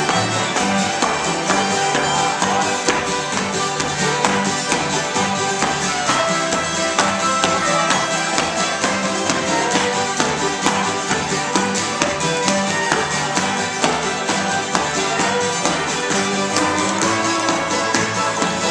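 Old-time string band jam: fiddle over strummed acoustic guitars, playing a steady beat, with dancers' shoes tapping on a wooden floor.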